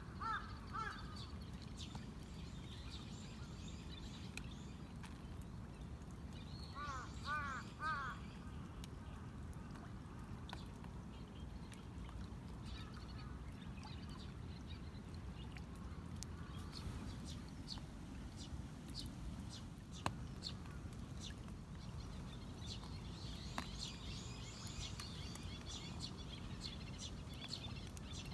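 Outdoor ambience with a steady low rumble. A bird calls in a quick run of four or five short notes about seven seconds in, and small birds chirp faintly near the start and again near the end. A single sharp click comes about twenty seconds in.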